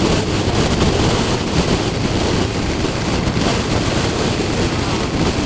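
Wind buffeting the microphone over the running noise of a motorcycle on the move, a steady rushing noise with no breaks.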